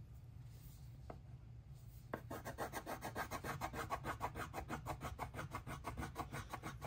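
Blue colored pencil scratching back and forth on paper as a large area is shaded in; after a light tap about a second in, the rapid, even strokes begin about two seconds in.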